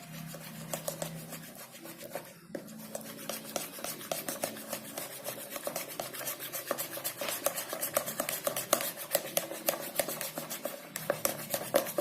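A stirrer scraping and clicking against a container in rapid repeated strokes while stirring white and clear glue together for slime. The strokes get denser and louder a few seconds in.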